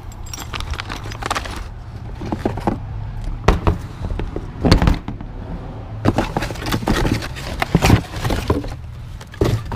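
A cardboard box being handled and rummaged through: irregular rustles, scrapes and knocks from the box flaps and the metal and plastic step parts inside, over a steady low hum.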